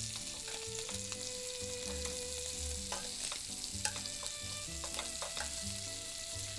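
Shrimp sizzling in butter in a stainless steel skillet, a steady frying hiss, with scattered sharp clicks of metal tongs against the pan as the shrimp are turned.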